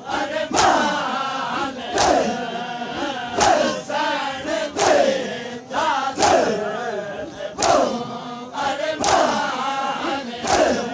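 A crowd of men chanting a mourning noha in unison, with a loud collective slap of hands on bare chests (matam) about every one and a half seconds, keeping the beat.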